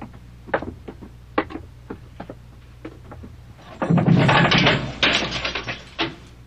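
A few footsteps, then, about four seconds in, a barred iron jail-cell door being swung shut and locked: a loud metallic rattling clatter for about two seconds, ending in a single clank.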